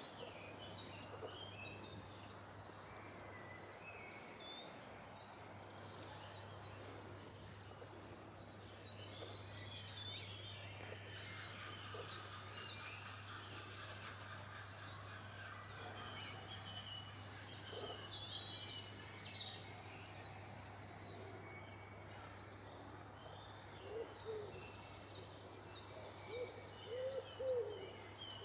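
Small songbirds singing and chirping with many quick high trills, overlapping throughout, and a lower, repeated call from another bird joining near the end.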